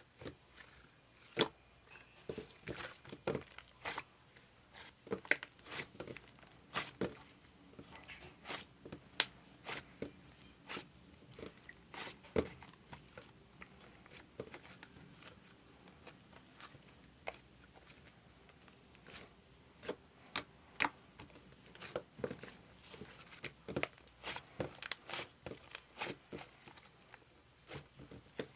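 Slime being squeezed, stretched and folded by hand, with irregular sharp clicks and pops.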